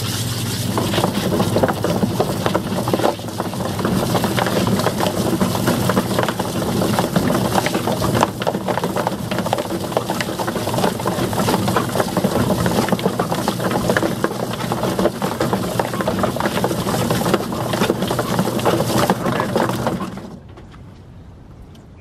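Homemade washing-machine chicken plucker running: its belt-driven washer motor hums steadily while the rubber plucker fingers beat and tumble a scalded chicken, with a garden hose spraying water into the drum. It stops suddenly about twenty seconds in.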